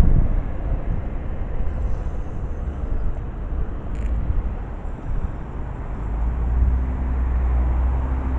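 City street traffic rumble, steady and low, with a vehicle engine hum growing louder over the last couple of seconds and a brief click about four seconds in.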